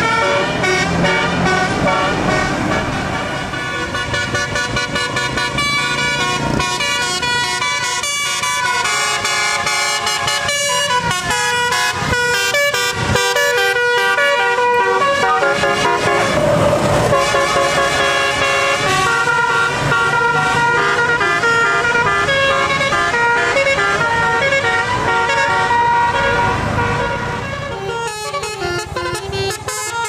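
Telolet musical air horns on tour buses playing quick multi-note tunes, one melody after another. Bus engines run low underneath.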